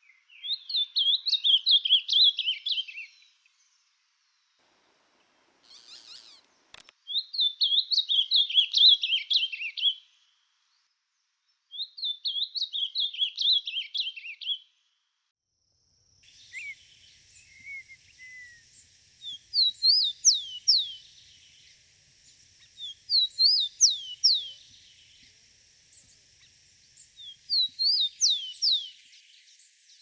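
An ultramarine grosbeak (azulão) sings a rapid warbled phrase three times, each lasting about three seconds. After a short gap, a rufous-collared sparrow (tico-tico) sings its short song of slurred, sharply gliding whistles three times over a faint steady hiss.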